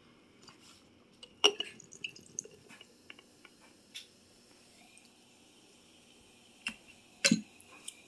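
MD 20/20 Spiked Punch Island Pineapple being poured from its bottle into a glass mason jar, the liquid splashing and foaming in the glass. A few sharp knocks of bottle and glass come through, the loudest about a second and a half in and near the end.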